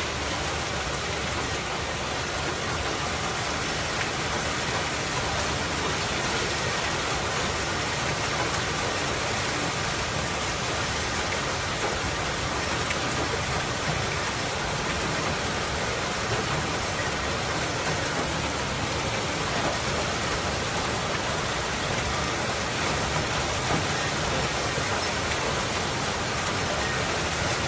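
Heavy storm downpour of rain and hail beating steadily on surfaces, a dense, even hiss with no let-up.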